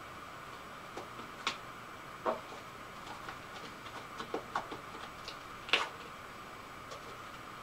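Cardboard pieces and a roll of duct tape being handled: scattered light clicks and taps at irregular intervals, the sharpest about three-quarters of the way through, over a faint steady room hum.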